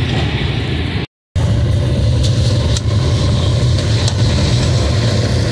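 Hot oil bubbling and sizzling as strands of nimko deep-fry in a large karahi, over a steady low rumble. The sound cuts out briefly about a second in.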